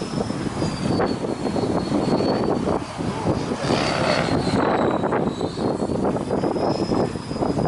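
Radio-controlled helicopter, a T-Rex 500 clone, flying, its high rotor-drive whine drifting slowly up and down in pitch. Heavy gusts of strong wind buffet the microphone.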